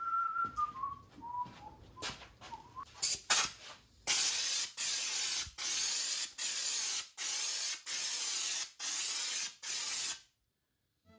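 Air-powered schutz gun spraying underbody stone-guard sealer in about nine short, evenly spaced bursts of loud hiss, after a few seconds of clicks and a faint whistle sliding down in pitch.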